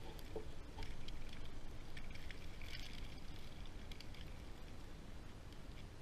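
Blizzard wind rumbling on the microphone, with scattered faint ticks and crackles that thicken about two to three seconds in.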